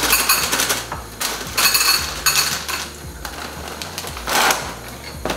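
Kellogg's Panadería churro cereal poured from the box's plastic bag into a glass bowl: dry pieces rattle and clatter in several short pours, with the crinkle of the plastic bag.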